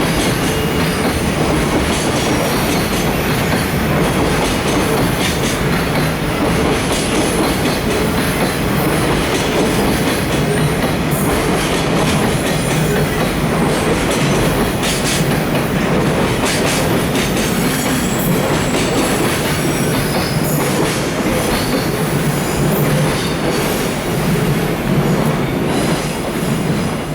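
A freight train's container flatcars rolling past, with a steady heavy rumble of steel wheels on rail, some clattering and faint thin wheel squeal; the noise eases slightly near the end.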